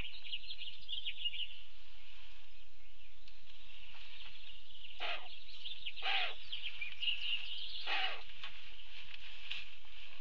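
Small birds chirping and singing without a break in the background, with three short rustling scuffs about five, six and eight seconds in as the California condor shuffles its feet in the sandy floor of the nest cave.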